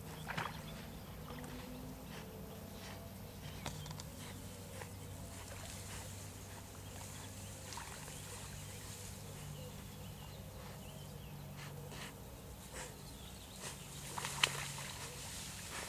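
A Barbet water dog wading through a shallow pond while searching for a retrieving dummy: scattered sloshing steps and small splashes, the loudest about 14 seconds in, over a steady low hum.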